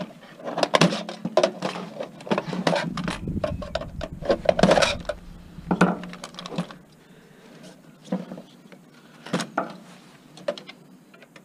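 Metal clattering and knocking from a desktop computer case being pulled and worked at by hand to free a part that won't come off: irregular clanks and rattles, thickest in the first six seconds and sparser after.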